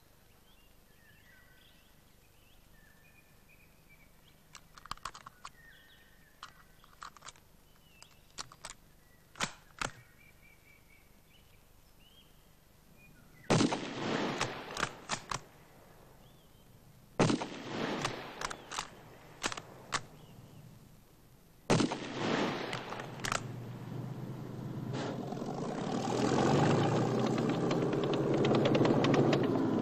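Three rifle shots about four seconds apart, each with a long echoing tail, fired at a target, after a few small clicks. Over the last few seconds the engine and tracks of a T-34 tank rise to a loud steady running.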